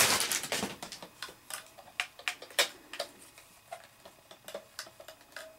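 Irregular sharp plastic clicks and crinkles as a pistol-grip RC radio transmitter is handled and taken out of its clear plastic wrapping.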